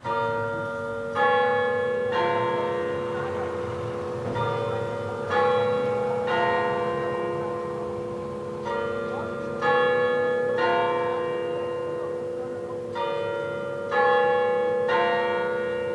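Church bells ringing in a repeating round of three strikes, about four rounds in all. A new round starts roughly every four seconds, and each strike rings on under the next.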